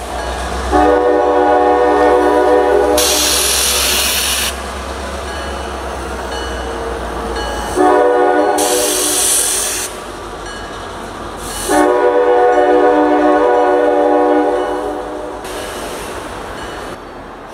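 Multi-note air horn of a CSX GP38-2 diesel locomotive sounding three blasts as the train approaches: long, shorter, then long, each a steady chord.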